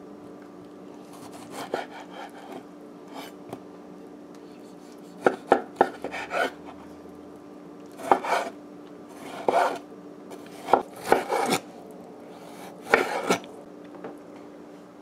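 Chef's knife slicing a tomato on a bamboo cutting board: groups of short cuts, the blade knocking on the wood, every second or two.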